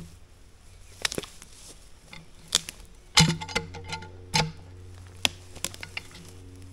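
Steel logging chain clinking and clanking as it is handled and wrapped around a log, with a run of sharp metal knocks, over a steady low hum.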